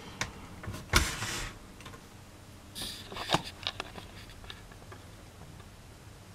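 Handling of a mini-system amplifier unit's plastic and metal casing: a sharp knock about a second in, then a few clicks and knocks around three seconds in.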